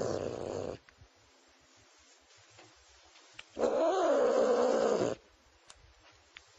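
A cat yowling. One long yowl ends just after the start, and another, about a second and a half long, comes near the middle with its pitch rising and falling.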